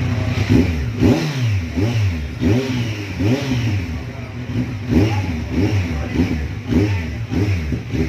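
Kawasaki Z1000 inline-four engine revved in quick, repeated throttle blips through an aftermarket mid pipe and blue-tipped slip-on muffler. The pitch rises and falls with each blip, over a steady idle.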